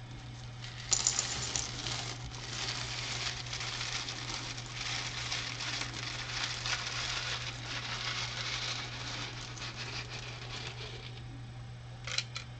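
Loose plastic Lego pieces pouring out of a cup onto a pile: a dense rattling clatter that starts about a second in and dies away near the end.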